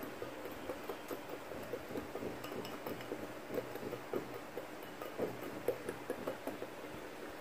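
Small wire whisk clinking and scraping against a ceramic bowl, stirring dry cocoa powder mix with quick, irregular light ticks.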